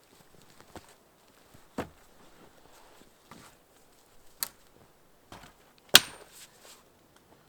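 Irregular sharp chopping knocks on wood, a few seconds apart, the loudest about six seconds in with a short metallic ring after it.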